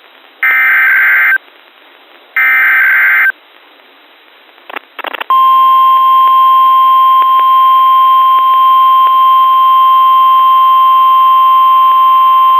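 NOAA Weather Radio emergency alert signal. Two raspy one-second SAME digital header bursts sound about a second apart. After a brief crackle about five seconds in, the loud, steady, single-pitch 1050 Hz warning alarm tone begins and holds. The signal opens a weekly test of the weather warning system.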